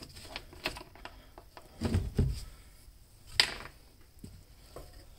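Light clicks and knocks of a plastic gas can and its spout being handled, with a low thump about two seconds in and a sharper click about three and a half seconds in.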